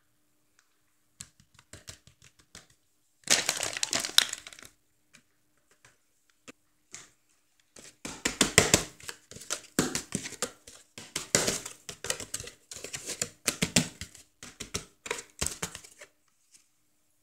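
Paper colomba baking mould crackling and rustling as it is handled, tilted and shaken to spread flour over its buttered inside. A short burst comes about three seconds in, then a longer stretch of crackles and light knocks from about eight seconds until near the end.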